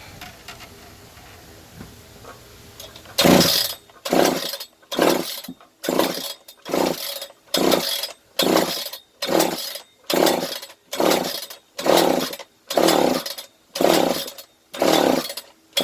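Recoil starter of a Hitachi DSH 700-X two-stroke concrete cut-off saw pulled again and again, about fifteen quick pulls a little more than one a second, starting about three seconds in. The engine turns over on each pull but never catches, a no-start that the owner suspects comes from a dirty carburetor.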